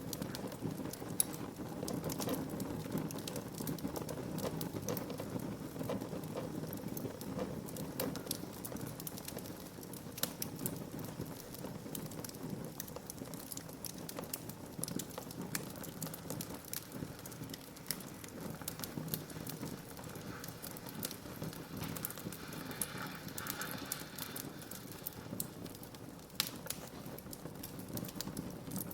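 Wood fire burning in a fireplace: steady crackling with scattered pops over a low rumble of flames, and one sharp pop about a second in.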